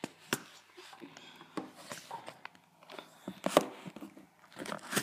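Handling noise: irregular light clicks, knocks and rubbing as the tablet and the recording phone are moved about, with a louder knock about three and a half seconds in.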